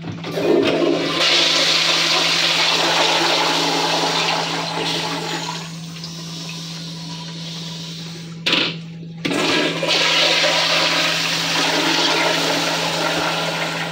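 Commercial toilet with a flushometer valve flushing twice: a loud rush of water through the bowl, a short break, then a second flush starting about nine seconds in. The bowl rinses through without a siphon action.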